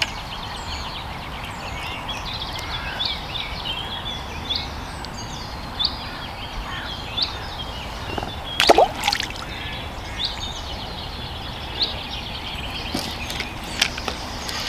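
Small birds chirping and singing repeatedly over a steady outdoor hiss beside a lake. About two-thirds of the way in comes a brief, louder slosh of water, and there are a few sharp clicks near the end.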